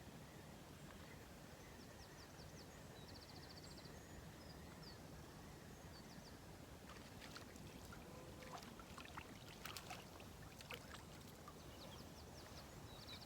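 Quiet riverside ambience: a steady low background hush, with a short, rapid, high chirping trill twice in the first few seconds and a scatter of soft clicks and knocks in the second half.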